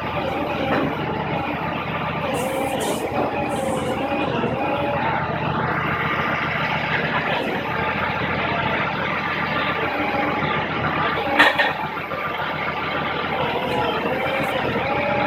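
Heavy vehicle engine running steadily, with a sharp knock or clank about eleven seconds in.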